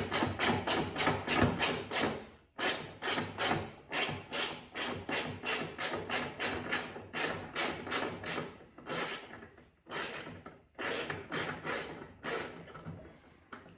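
Hand ratchet with a T25 Torx bit clicking at about four clicks a second as it backs out headlight mounting screws, with two short pauses.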